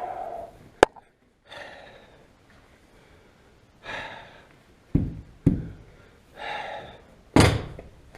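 A sharp click about a second in, then three dull knocks and thumps, the last the loudest, with short squeaky rubbing sounds between them.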